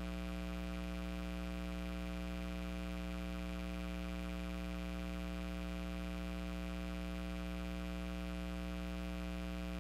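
Steady electrical buzz, mains hum with many overtones, unchanging in pitch and level.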